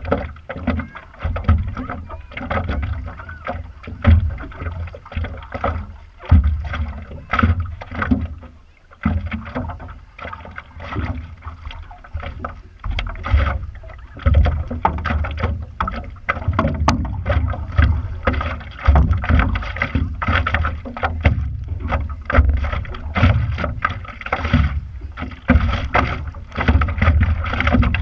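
Water lapping and slapping irregularly against a stand-up paddleboard and the paddle dipping, picked up by a GoPro mounted on the board's deck, with a steady low rumble underneath.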